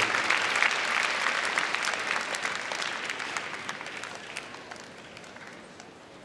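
Audience applause in a large arena, loud at first, then dying away over a few seconds until it has mostly faded out near the end.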